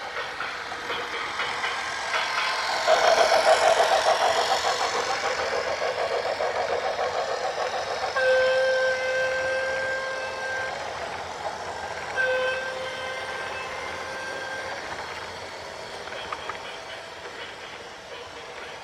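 A loud, rapid clattering noise swells about three seconds in and slowly fades, then a horn sounds two long steady blasts, each about two and a half seconds.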